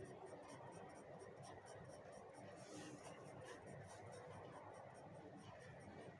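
Faint scratching of a graphite pencil on paper, shading a letter with short strokes.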